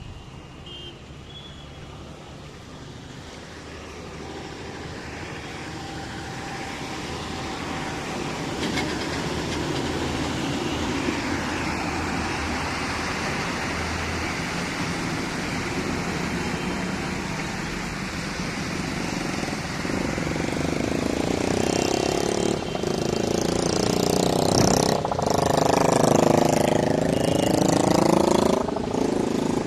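A motor vehicle's engine grows steadily louder as it approaches, and its pitch dips and rises again near the end.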